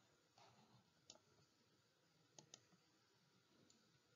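Near silence with four faint computer mouse clicks, two of them in quick succession about halfway through.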